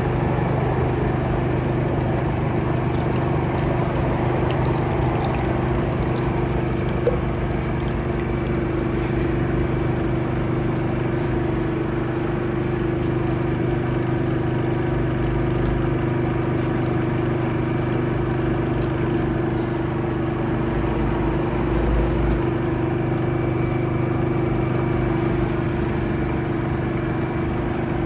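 Engine-driven high-pressure drain-jetting machine running steadily at a constant speed, a continuous hum.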